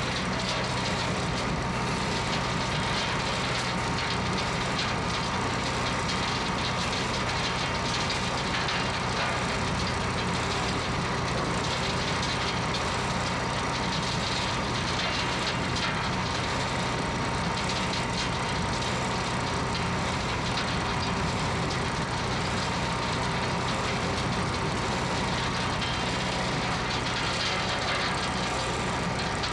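John Deere 892D-L excavator's diesel engine and a placer gold wash plant running together in a steady, unbroken machinery din with a constant hum.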